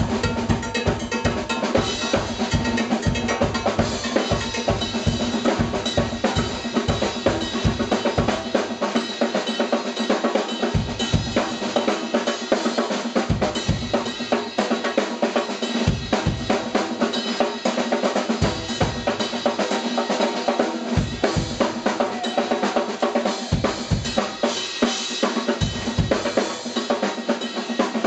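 Live drum kit with percussion, in a fast, busy drum passage of snare and rimshot strokes over kick drum. The kick drum is packed tightly for the first third or so, then comes in more sparse, spaced-out hits.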